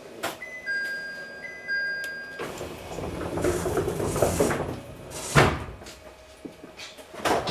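An electronic two-note chime on the train sounds for about two seconds after a click, followed by a rushing hiss and a couple of sharp knocks.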